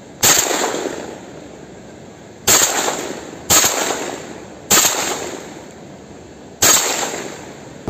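Five shotgun shots fired in quick succession, one to two seconds apart, each a sharp loud report that rings out and fades over about a second.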